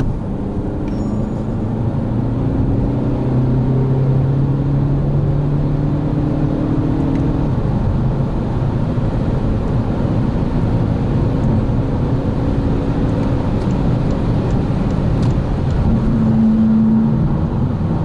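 Volkswagen Passat GT's 190 hp 2.0 TDI diesel engine accelerating hard from 80 km/h, heard from inside the cabin over steady road and tyre noise. The engine note holds and then moves to new pitches several times as it pulls.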